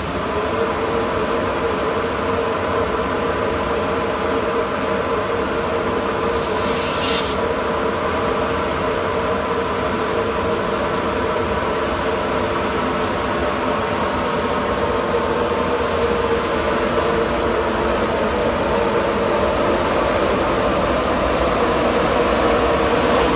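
Class 91 electric locomotive running with a steady, many-toned electrical whine that grows slowly louder, and a brief hiss about six seconds in.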